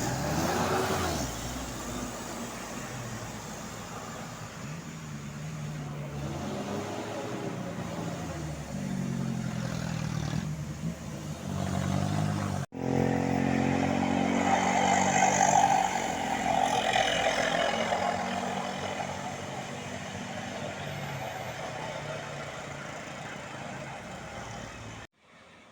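Tour buses on an uphill climb, engines running under load, sounding Basuri multi-tone 'telolet' horns in a run of stepped melodic notes. The sound drops out briefly about halfway through and is loudest just after.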